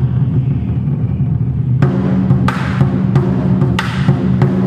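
A Twenty-Four Festive Drums ensemble playing large Chinese barrel drums together: a dense, steady low rumble, then about two seconds in, sharp, accented strikes cut in at a few per second over the booming drum tones.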